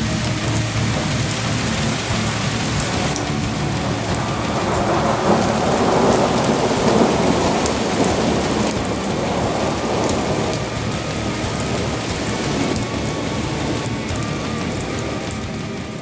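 Steady rushing rain with a rolling swell of thunder in the middle, easing off at the very end.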